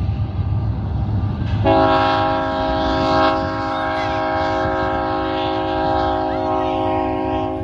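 Union Pacific freight locomotive's multi-chime air horn sounding one long steady blast, starting about a second and a half in and held for about six seconds. Under it is the low rumble of the passing manifest train.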